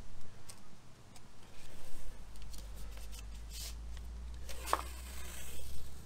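Painter's tape being pulled off its roll and pressed around the join of a wooden hive box: crackling, rustling handling sounds with two longer tearing peels about halfway through and near the end.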